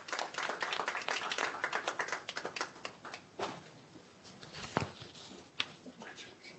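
The last scattered hand claps of a round of applause dying away, then papers being shuffled on a table with a few light knocks.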